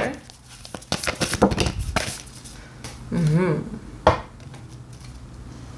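A deck of tarot-style cards being handled on a table: a quick run of clicks and taps for about two seconds, then one sharp tap about four seconds in.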